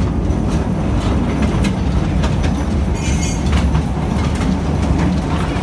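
Narrow-gauge mine train running through an underground tunnel: a steady heavy rumble with scattered clacks of the wheels over the rails, and a brief high-pitched wheel squeal about three seconds in.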